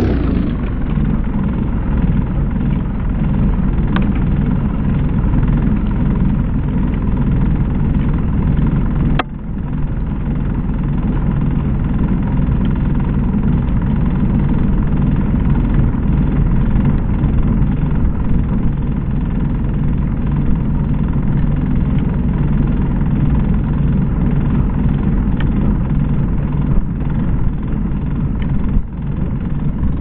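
Ram 2500 pickup truck running steadily while driving, with a sharp click about four seconds in and another about nine seconds in.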